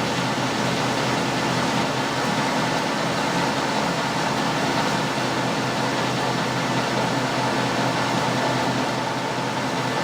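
Colchester lathe running steadily while a homemade knurling tool rolls a knurl into a handle blank, a constant machine hum and grind with no change through the stretch.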